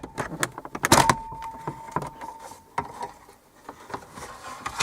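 Plastic steering-column trim moulding on a Ford Focus being prised out by hand: a run of sharp plastic clicks and snaps, loudest in a cluster about a second in, with a thin held squeak for about two seconds after it.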